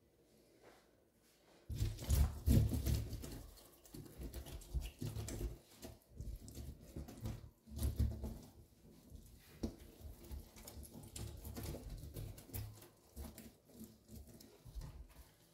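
A hand rubbing lemon juice over a wet stainless-steel sink drainboard: irregular wet rubbing strokes, starting about a second and a half in.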